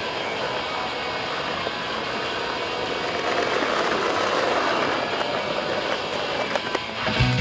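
Skateboard wheels rolling fast on asphalt, a steady rumble that grows a little louder around the middle. Music with a heavy bass beat comes in near the end.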